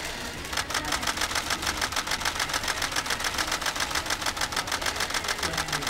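Many camera shutters firing in rapid bursts, a fast steady clatter of clicks about ten a second, starting about half a second in.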